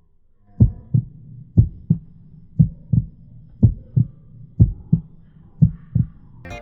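Heartbeat sound effect: six low double thumps, lub-dub, about one a second.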